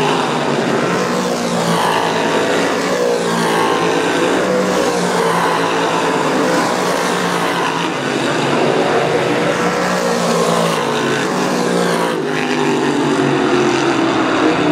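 Dirt-track modified race cars' V8 engines running hard as a pack laps the track, a continuous din in which each car's pitch rises and falls as it goes past.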